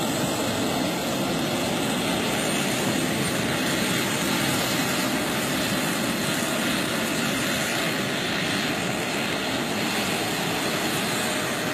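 Radio-controlled scale model helicopter flying: a steady engine noise without a clear pitch that holds an even level throughout.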